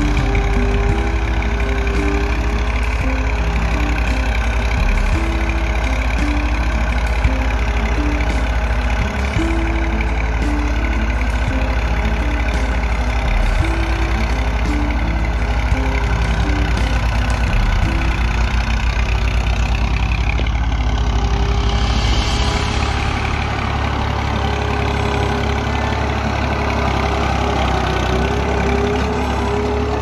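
Farm tractor's diesel engine running steadily under load as it pulls a tine cultivator through dry soil. The deep low rumble eases about two-thirds of the way through.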